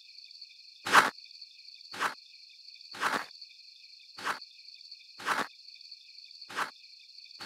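Six footsteps of shoes on an asphalt street, about one a second, growing fainter as the walker moves away, over a steady high chirping of crickets.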